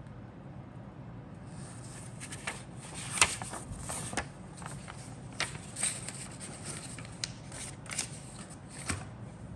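Paper instruction sheet being handled, folded and flipped over: irregular rustling and crackling starting about a second and a half in, with the sharpest crackle about three seconds in.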